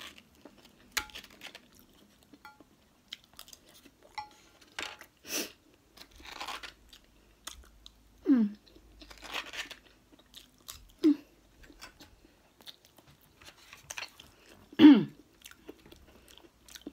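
Close-miked chewing and mouth sounds of a person eating soft avocado and sushi, with a metal spoon scraping avocado flesh from the skin at the start. Three short hums from the eater fall in pitch, the loudest near the end.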